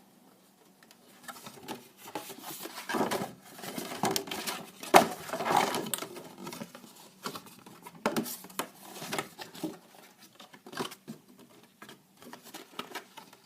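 Rustling and crinkling of a cardboard game board and its wrapping being handled, with scattered taps and clicks. The sharpest click comes about five seconds in.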